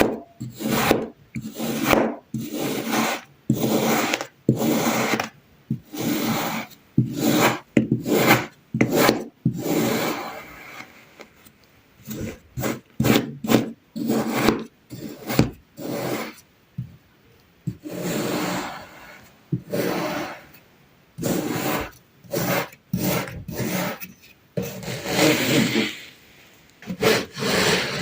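Kinetic sand being sliced repeatedly with a blade: a run of short, gritty scraping strokes, one to two a second, with a brief lull about two-thirds of the way through.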